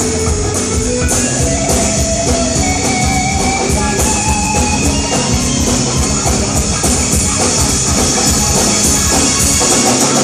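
Live rock band playing an instrumental passage, with electric guitar and a drum kit keeping a steady beat.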